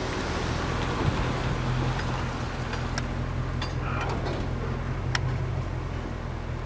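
Storm wind and rain noise over a steady low hum, with a few sharp ticks about three, three and a half and five seconds in.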